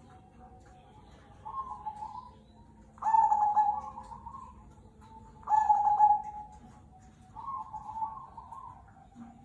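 Zebra dove (perkutut) of the black cemani kolbuntet type cooing: four low coo phrases a couple of seconds apart, the middle two the loudest.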